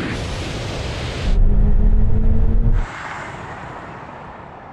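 Electric SUVs racing at speed on a drag strip: rushing tyre and wind noise with no engine note. About a second in, a loud low rumble with a steady hum takes over for about a second and a half, then gives way to a quieter rush that fades.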